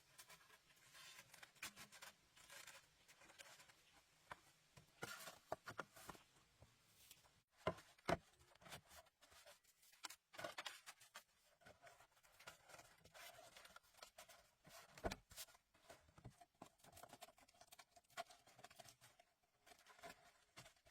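Faint, irregular scraping, rustling and clicking of hand work, with a few sharper knocks about eight, ten and fifteen seconds in.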